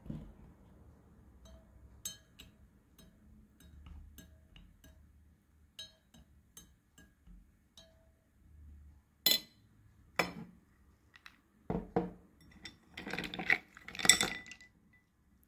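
Glassware clinking: scattered faint ticks at first, then a few sharp clinks and a quick cluster of louder clinks near the end.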